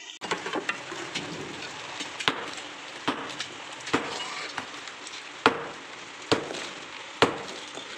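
A hand tool striking and breaking up an old concrete slab, with sharp blows about once a second and loose rubble shifting. Steady heavy rain runs underneath.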